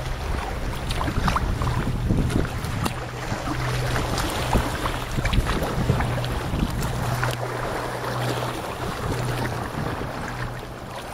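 Wind on the microphone and water noise from a boat on the sea, with scattered splashes and a steady low hum underneath.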